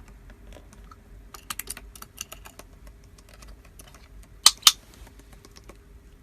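Scattered light clicks and taps, like keys being typed, with two sharp, louder clicks about two-thirds of the way through.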